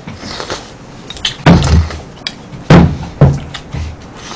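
Several loud, dull thumps, the strongest about a second and a half in and twice more around three seconds, with quieter scraping noise between them.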